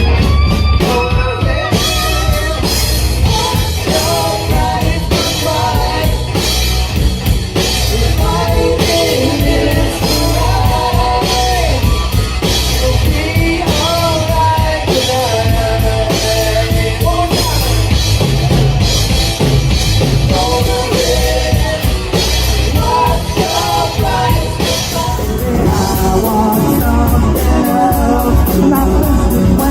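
Rock power trio playing a song: electric guitar, bass and drum kit with a singer's vocal line over a steady, loud beat.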